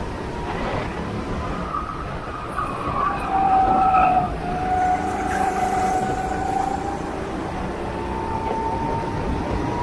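Go-kart engines running at race speed, a high whine that shifts up and down in pitch over a steady rumble, loudest about three to four seconds in.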